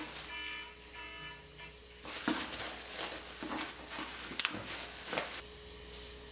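Plastic bags rustling as plastic food containers are lifted out and handled, with a few light knocks of the containers and lids. It starts about two seconds in and stops suddenly about three and a half seconds later.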